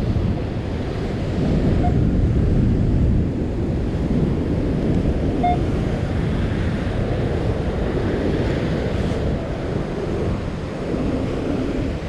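Heavy surf breaking and washing up the beach, a dense low rumble that swells about two seconds in, with wind buffeting the microphone.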